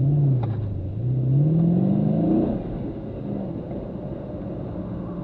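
Car engine heard from inside the cabin, revving hard as the car launches from a standstill. Its pitch climbs steadily for about two seconds, drops sharply about two and a half seconds in, then runs steadier and quieter.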